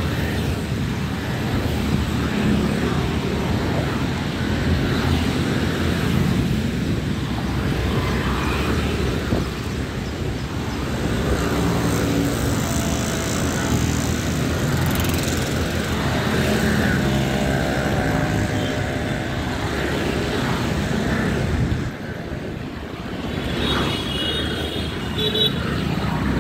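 Steady street traffic: motorcycle, scooter and auto-rickshaw engines running past in a constant low drone. A few short high beeps come near the end.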